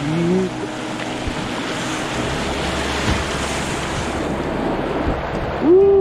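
Rushing, churning river water as a kayak runs a whitewater riffle: a steady, loud hiss of broken water around the boat. A few dull knocks are heard, and there is a short, loud vocal cry near the end.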